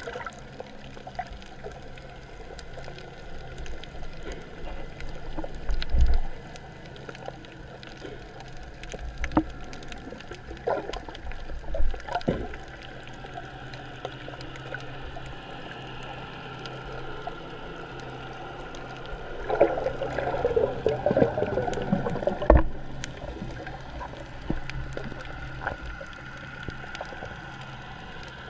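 Underwater sound picked up through an action camera's housing during a spearfishing dive: a steady low hum under scattered clicks and knocks. Loud thumps about six and twelve seconds in, a spell of crackling clatter a little after the middle, and a sharp knock at its end, from the diver's speargun and gear.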